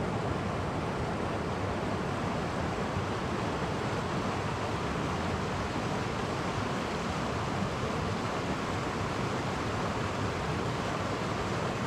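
Clear stream running over small cascades: a steady, even rush of flowing water.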